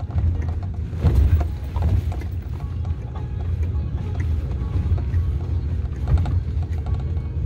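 Vehicle cabin on a rough gravel mountain road: a steady low engine and road rumble, with knocks and rattles as the vehicle jolts over the stones, sharpest about a second in and again near six seconds.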